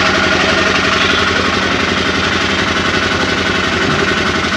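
Diesel being pumped from a fuel-dispenser nozzle into a plastic jerry can: a steady rushing of fuel over a fast, even mechanical pulsing.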